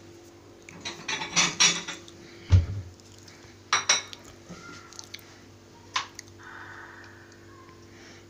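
Kitchen dishes and cutlery clattering and clinking in several short bursts, with a dull thump about two and a half seconds in, over a faint steady hum.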